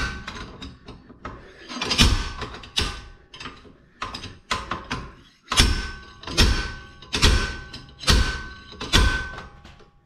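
A series of heavy metal-on-metal blows, each with a short ringing note, coming about once a second with a pause in the middle. The blows are an attempt to drive out a seized rear wheel hub bearing assembly.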